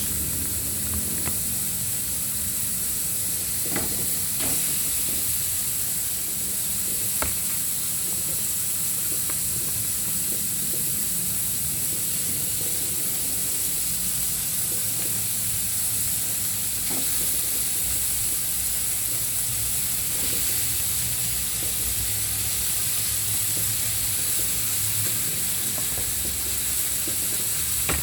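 Food frying in oil in a pan, sizzling steadily, with a few light clicks of a cooking utensil now and then.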